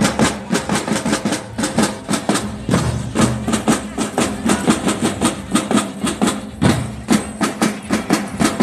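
Music driven by fast, even drum strikes, about four to five a second, over a steady bass line.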